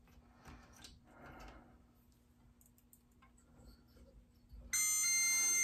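Multimeter's continuity beeper starts about four-fifths of the way through and sounds one steady high tone, showing that the McCulloch chainsaw's breaker points are closed and carry through to ground. Before it, faint rustling of hands and test leads.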